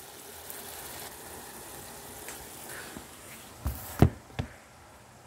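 Faint steady sizzle of a tomato-and-onion sauce simmering in a stainless pan, then three sharp knocks near the end, the middle one loudest, after which the sizzle drops away.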